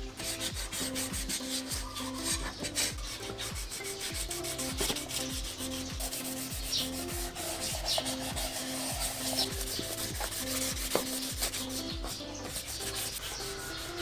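Sandpaper wet-sanding stripped metal motorcycle engine parts by hand with water and soap, a steady run of rasping back-and-forth strokes, as the bare metal is keyed for primer.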